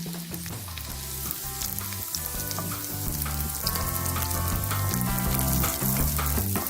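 Food sizzling in a hot frying pan, a dense crackling hiss that starts suddenly and slowly grows louder, over background music with low notes stepping from one to the next.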